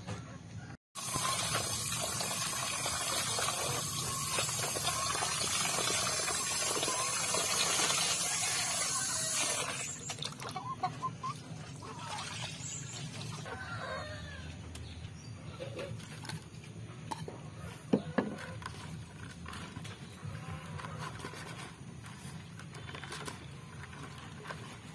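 Water splashing steadily into and around a plastic basin for several seconds, stopping about ten seconds in. After that, hens clucking and small birds chirping over light handling sounds.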